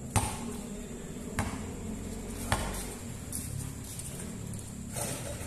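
A basketball bouncing on a concrete court: four separate sharp thuds at uneven intervals, the first, just after the start, the loudest.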